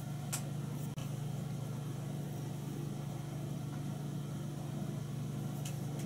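Steady low background hum, with a faint tick about a third of a second in and another near the end.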